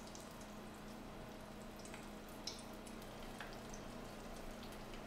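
Battered onion rings frying in hot oil in a pot: a faint, even sizzle with a few small crackles, the blanching first fry that cooks the onion inside.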